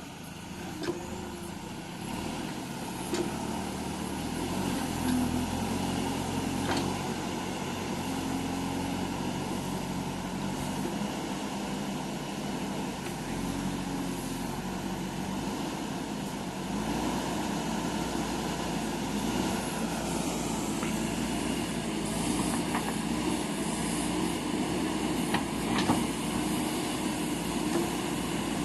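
JCB backhoe loader's diesel engine running while it works, its pitch shifting up and down with the load, with a few brief knocks.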